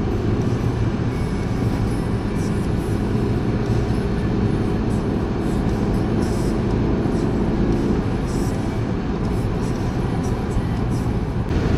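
Steady engine and tyre noise of a car driving at highway speed, heard inside the cabin.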